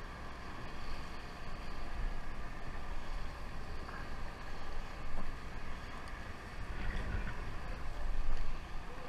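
Steady low rumble of a sportfishing boat at sea with wind on the microphone, growing louder for a moment about five seconds in and again about eight seconds in.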